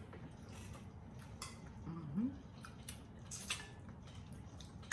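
Close mouth sounds of eating pork neck bones: scattered wet clicks and smacks of chewing, with a brief vocal hum about two seconds in.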